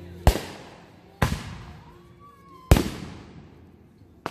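Consumer aerial fireworks bursting overhead: three sharp bangs roughly a second to a second and a half apart, each trailing off in a fading echo, then a smaller pop near the end.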